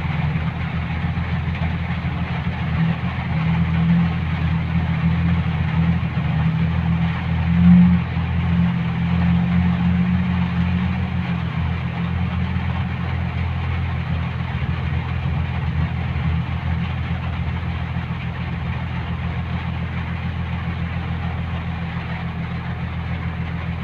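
A steady engine hum like an idling motor, with an even hiss over it. It swells slightly about eight seconds in.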